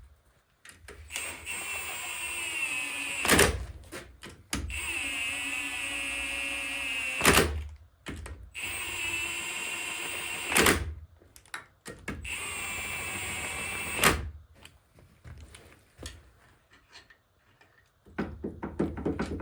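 A power tool running in four bursts of a couple of seconds each, a steady whine that dips a little in pitch on the second run, each burst ending in a sharp bang. Quieter clicks and knocks of parts being handled fall between the runs.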